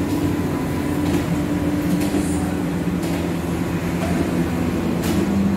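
A steady low machine hum with two droning tones and a constant hiss above them, running evenly without change.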